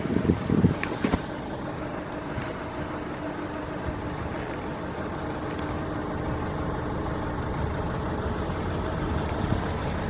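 Nissan NV350 Caravan's 2.5-litre diesel engine idling steadily, with a faint steady hum and a few light clicks.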